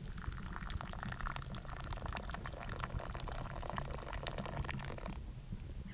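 Tea poured in a thin stream from a small pot held high into a wooden cup, splashing steadily and stopping abruptly about five seconds in.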